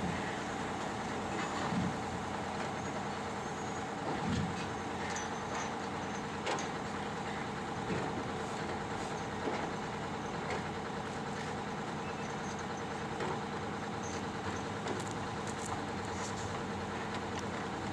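A heavy machine's engine running steadily, with a few short knocks and clunks over it.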